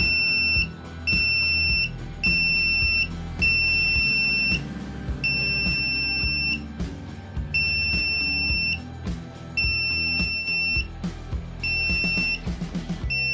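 Electronic buzzer of a homemade flame-sensor fire alarm sounding its alarm in about nine high, steady beeps, each roughly a second long and unevenly spaced. Background music plays underneath.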